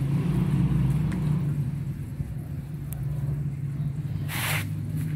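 A motor's steady low hum runs throughout. About four seconds in comes a short splash of water.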